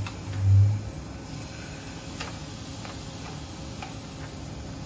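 Scallops sizzling in a hot, lightly oiled frying pan as they are laid in one by one, with light scattered crackles about every half second. A brief low hum pulses once at the very start.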